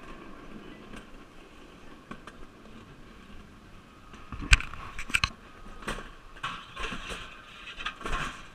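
Toboggan running down a steel trough track: a steady rushing hiss with irregular clattering knocks, the loudest about four and a half seconds in.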